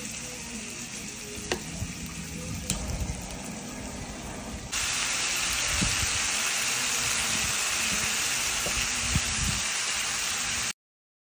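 Sliced beef, shrimp and salmon sizzling on a tabletop electric grill pan, with a few sharp pops early on. About halfway through the sizzle becomes abruptly louder, and it cuts off just before the end.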